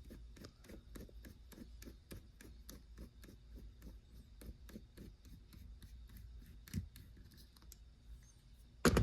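Small bit screwdriver working the plug-retaining screw out of an aluminium-bodied padlock: a steady run of light clicks, about five a second, with one louder knock near the end.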